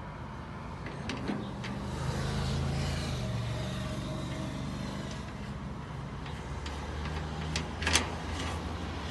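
Open-end wrench loosening a refrigerant flare nut on an old split air conditioner's outdoor-unit service valve, letting out a brief faint hiss from the very little refrigerant left in the line. A low steady rumble runs underneath, and a sharp metallic clink of the wrench comes near the end.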